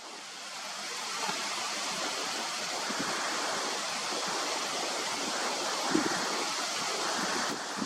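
Wind blowing steadily, a rushing hiss that swells over the first second and then holds, with a couple of soft low bumps, the louder near the end.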